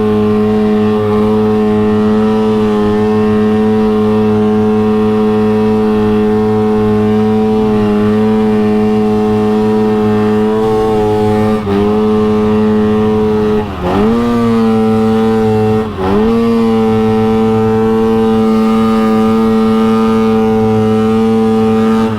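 Arctic Cat 858 two-stroke snowmobile engine held at steady high revs that do not climb, dipping and recovering three times about halfway through. The sled is bogging and stuck at about 6,000 RPM, which the rider suspects is the exhaust valves.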